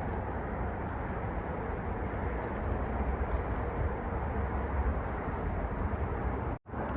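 Steady vehicle and road noise, a low rumble with an even hiss over it, cut off abruptly near the end.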